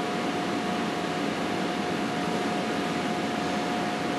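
Steady room tone: an even hiss with a faint, constant mid-pitched whine and no distinct handling sounds.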